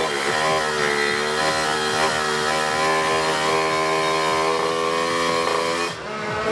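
Two-stroke Kawasaki Ninja 155cc drag-bike engine revved hard: the revs dip briefly, climb, and are held steady at high rpm for about five seconds, then fall away near the end.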